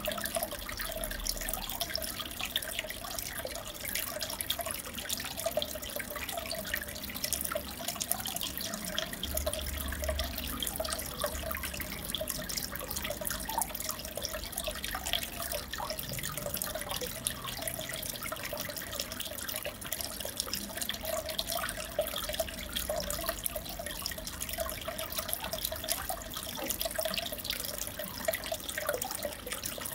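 Aquarium water bubbling and trickling steadily, dense with small pops and drips.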